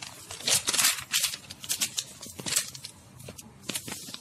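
Paper pages of a book being turned and handled, a series of short crisp rustles.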